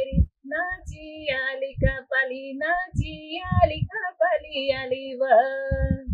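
A woman singing an Adivasi folk song alone in a high voice, with long held and slightly wavering notes, and a few dull low thumps underneath.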